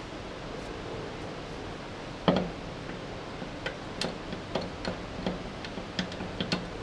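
A hand ratchet being worked on the bolts of a train's pneumatic brake dump valve: one sharp metallic clack about two seconds in, then a run of light, irregular ratchet clicks, over a steady background hiss.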